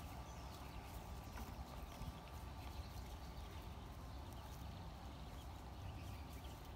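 Dogs lapping and chewing wet food from plastic bowls: faint scattered clicking and smacking over a low steady rumble.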